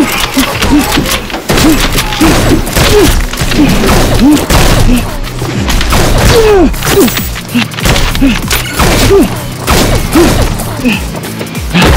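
A fast, busy run of thuds and clacks, mixed with short huffing grunts about twice a second, over a music track.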